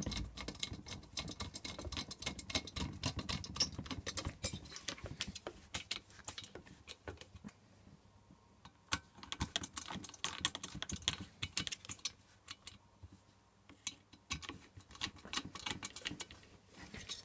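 Irregular clicking and rattling of metal parts and tools as the bolts holding a diesel heater's blower motor unit onto its burner are done up. The clicks come thick and fast for the first few seconds, then thin out to scattered clicks.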